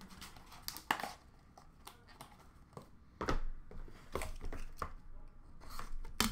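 Hands handling trading-card packaging: irregular clicks, taps and rustles as plastic card holders and small cardboard boxes are opened, moved and set down, with a sharper click near the end.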